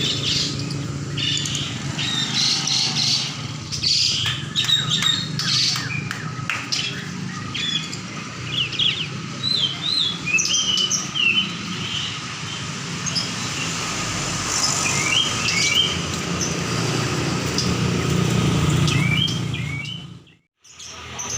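Several caged songbirds chirping and calling in short, quick, pitch-sliding phrases over a steady low hum. The sound cuts out for a moment near the end.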